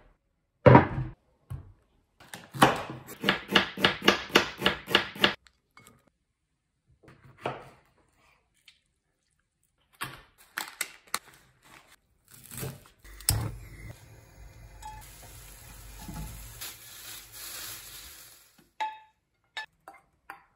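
Kitchen preparation sounds. A quick run of about a dozen chops on a wooden cutting board is followed by scattered clinks of utensils on dishes, then several seconds of steady rushing and scraping.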